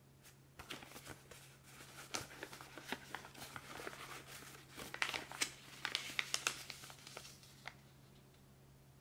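A printed paper leaflet being folded up by hand: crisp crinkling and crackling of the sheet along its creases, the sharpest crackles coming about two-thirds of the way through.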